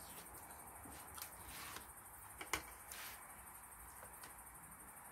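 A few soft clicks and taps of chopsticks against a metal ramyeon pot and its lid as noodles are lifted out, the loudest about halfway through, over a low steady background.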